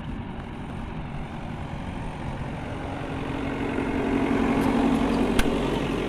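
JCB backhoe loader's diesel engine running as the machine drives, growing louder over the last few seconds. A single sharp click comes near the end.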